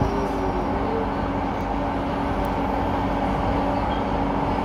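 Light rail train running along its track, heard from inside the front cab: a steady rumble of wheels on rail with a constant motor hum.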